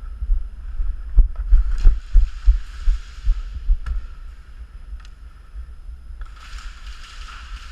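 Low, uneven thumping rumble on the microphone, with a few sharp clicks and two stretches of hissing rustle, the second starting about six seconds in.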